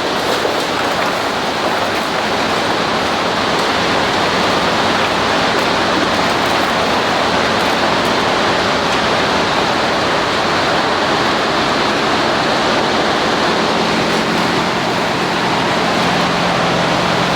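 Steady, loud rushing noise of a PET plastic recycling line running, with a low hum joining about fourteen seconds in.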